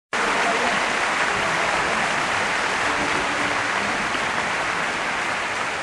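A steady rushing hiss with no clear pitch, starting just after the picture opens and easing off slightly near the end.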